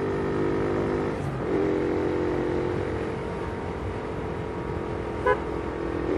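Motorcycle engine running at a steady cruise, with a brief dip in revs about a second in, under road and wind noise. A short horn beep sounds about five seconds in.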